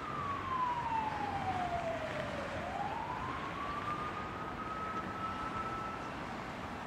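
A single siren-like tone over a steady hiss: it slides down over about two and a half seconds, then rises back to its starting pitch and holds there before fading near the end.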